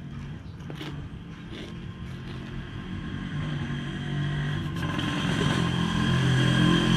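Motorbike engine going 'broom broom', getting steadily louder.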